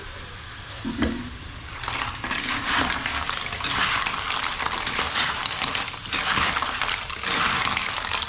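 Hairy cockles in their shells being stir-fried in a metal wok with a wooden and a metal spatula: shells clattering against each other and the pan over a sizzle. It gets louder about two seconds in, once the stirring gets going.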